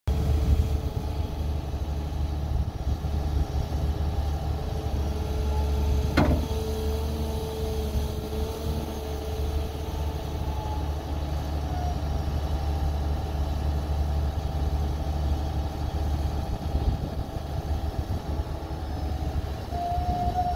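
Cat 318M wheeled excavator running steadily while its hydraulics move the stick and bucket. There is a single sharp clank about six seconds in, followed by a steady whine for a few seconds.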